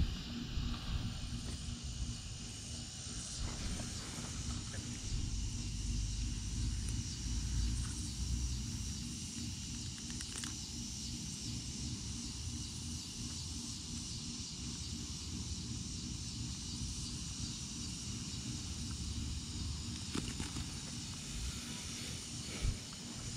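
Steady high chirring of evening insects, over an uneven low rumble of wind and handling noise on the microphone.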